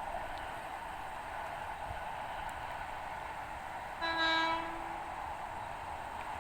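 KRL Commuter Line electric train's horn giving one short blast about four seconds in, a driver's greeting honk. It sounds over a steady background hiss.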